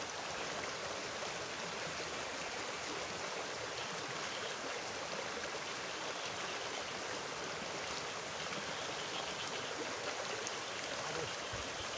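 A shallow, rocky river rushing steadily over stones in small rapids.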